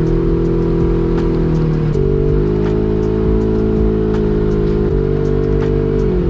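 Side-by-side UTV's engine running steadily as it drives a dirt forest trail, with music underneath that shifts pitch every few seconds over clicks about once a second.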